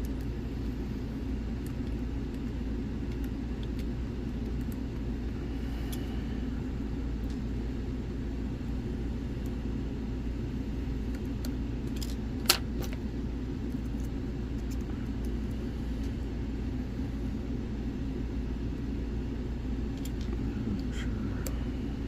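Lock picks and tension tool working a lock: faint metallic ticks and scrapes, with one sharp click about halfway through, over a steady low background hum.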